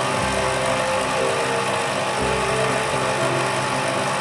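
Motor-driven mini-lathe made from an old meat grinder, running steadily as it spins a steel rod and winds steel wire onto it into a coil spring.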